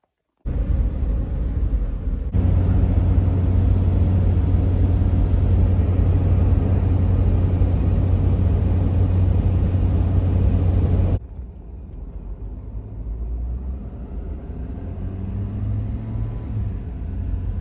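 Steady road and engine drone inside a car driving on snow-covered roads. It starts suddenly just after the beginning and drops abruptly to a softer rumble about eleven seconds in.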